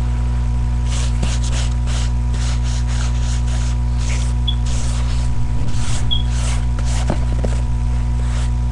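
Pencil strokes scratching on paper, short irregular strokes two or three times a second, over a steady low electrical hum from the webcam microphone.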